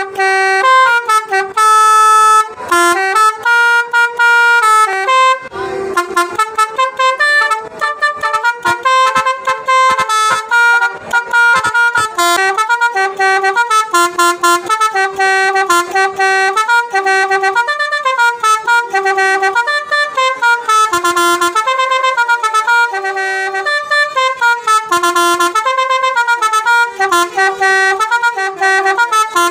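Basuri telolet bus horn, a multi-trumpet air horn, played loudly through tunes as a warm-up. Long held chords come in the first few seconds, then quick runs of short stepped notes jump between pitches for the rest.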